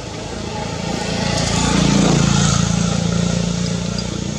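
A motor vehicle passing by, its engine growing louder to a peak about two seconds in and then fading.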